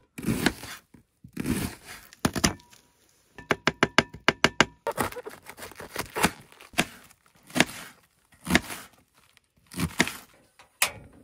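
Kitchen knife slicing an onion, then cutting and shredding a head of cabbage on a wooden cutting board: crisp cuts and knife strikes on the board. A quick run of rapid chops comes about three and a half seconds in.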